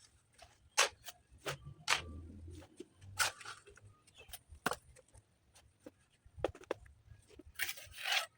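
Irregular sharp clicks and knocks, about a dozen, unevenly spaced, with a longer scraping rasp near the end: hand work on stone and masonry tools.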